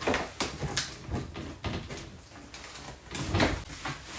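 Cardboard shipping box being unpacked by hand: flaps and paper packing rustling and crinkling, with several short knocks and scrapes as contents are pulled out.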